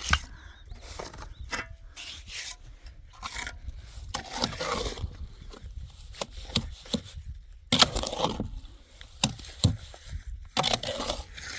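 Hand-tool work on a concrete-block and cement wall: irregular scraping and rubbing, broken by sharp knocks and taps, the loudest knock about eight seconds in and two more a little later.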